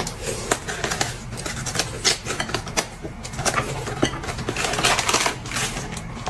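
Close-miked eating sounds: irregular crisp crunching and crackling from biting and chewing fresh lettuce wraps, mixed with the rustle of a butter-cookie packet being opened and handled.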